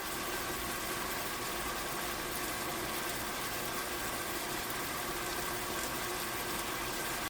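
Steady rushing, watery noise with a faint hum in it, cutting off suddenly at the end.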